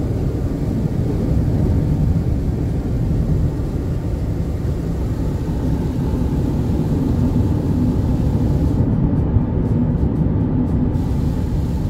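Steady low road and engine rumble inside the cabin of a 2003 Honda Element driving on a wet highway.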